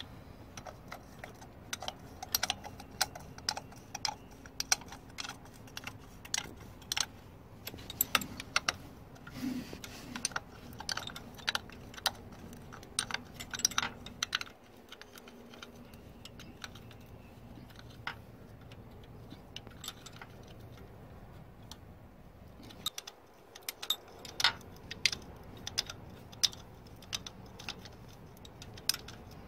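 A 13 mm ring spanner working on the cylinder head cover bolts: sharp metallic clicks and ticks in irregular bursts as the bolts are turned tight, sparser for several seconds in the middle.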